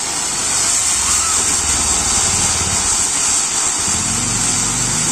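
Ground fountain firework (a flowerpot or anar) hissing steadily as it shoots up a column of sparks.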